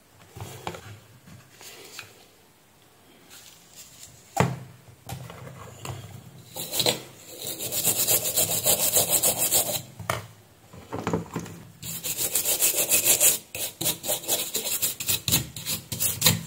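A brush scrubbing across a printed circuit board in rapid back-and-forth strokes, in two long spells, after soldering. A single sharp knock comes about four seconds in.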